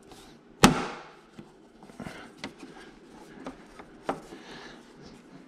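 A few sharp clicks and knocks from handling the bolts and the rear frame brace during fitting, the loudest one about half a second in, then fainter ones about two and a half and four seconds in.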